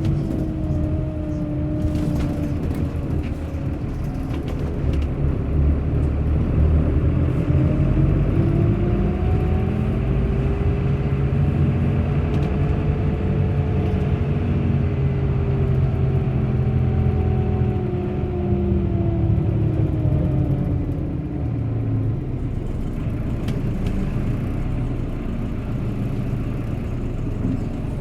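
Bus in motion: a steady low rumble of engine and road with a whine over it that rises in pitch for several seconds as the bus picks up speed, holds, then falls away as it slows.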